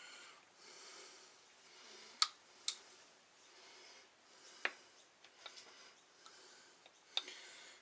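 A few sharp, small metallic clicks and taps, two close together about two seconds in, another near the middle and one near the end, as a forged piston and a small tool are handled while a wrist-pin stopper is taken out.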